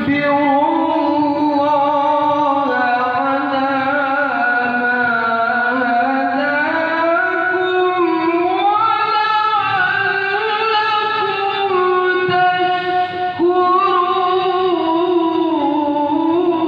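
A male qori reciting the Quran in a melodic, chanted style through a microphone and loudspeaker. He holds long notes that slide and turn slowly, with a short break for breath about thirteen seconds in.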